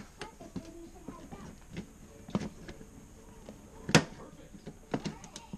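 Opening key being wound along the tear strip of a sheet-metal gas-mask storage can, peeling the can open: scattered metallic clicks and creaks, the sharpest about four seconds in.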